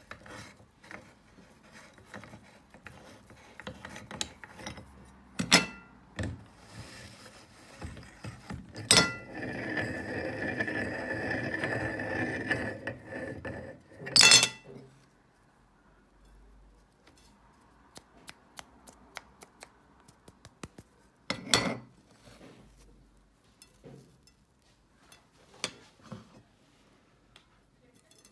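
Metal meat grinder being taken apart by hand: a few seconds of gritty scraping as the threaded ring is worked loose, and the cutting plate and blade clinking and knocking as they come off, with scattered light metal ticks.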